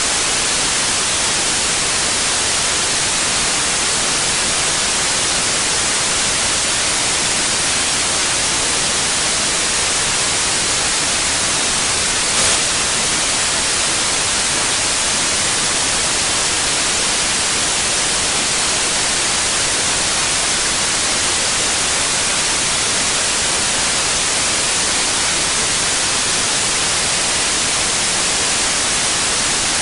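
Steady white noise, an even hiss strongest in the high end, with one faint brief click about halfway through.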